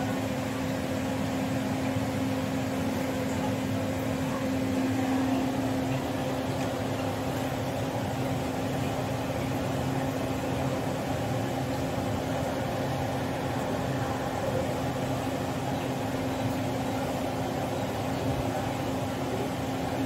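Samsung inverter refrigerator compressor running with a steady hum and a faint hiss while refrigerant gas is being charged into the system.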